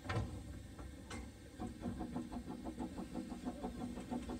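Steam yacht Gondola's vee-twin, non-condensing steam engine running, heard as a quick, even ticking of about five or six beats a second over a low hum from about a second and a half in. A knock comes at the start and another about a second in.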